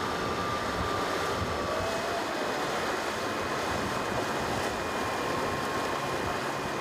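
Wind and rushing water from a racing sailboat sailing hard and heeled through choppy water, with wind buffeting the microphone. A faint thin whistle holds steady over the noise.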